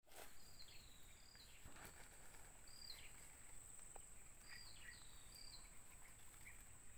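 Faint outdoor ambience: a steady high-pitched insect drone, with a bird calling about six times, each call a short high note that slides down in pitch.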